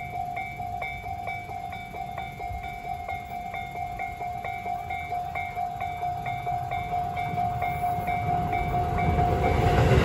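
Japanese level-crossing alarm ringing, its electronic bell repeating about twice a second in the Tobu Tojo Line type of tone. Near the end a train's running noise rises as it reaches the crossing.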